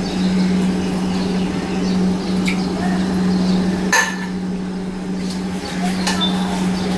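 A steady low hum runs throughout, with a few light clinks and one sharp click about four seconds in.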